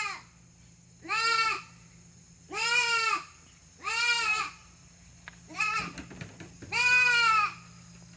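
Goats bleating again and again: five calls, each about half a second long with an arching pitch, the fourth one short.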